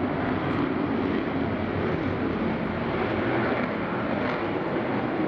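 Hellenic Air Force F-16 fighter jet's single turbofan engine during a low display pass: a steady, loud rushing jet noise that holds at an even level.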